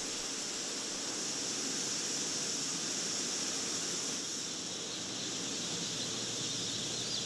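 Steady hiss of hatchery machinery and ventilation. From about halfway, many baby chicks peep faintly, growing clearer near the end.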